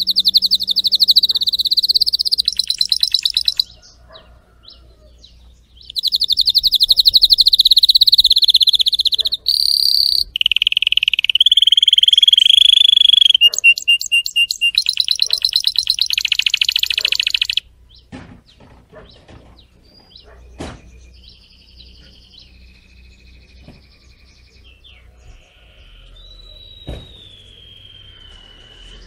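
Canary singing: long, rapid trills and rolls in two loud stretches with a pause of about two seconds between them. After about 17 seconds the song gives way to softer, scattered chirps and a short falling whistle near the end.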